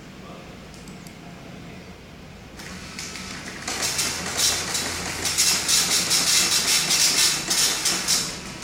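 Dot-matrix printer printing on continuous-form paper, the print head running back and forth in rapid passes, about three to four a second. It starts softly about three seconds in, gets louder, and stops just before the end.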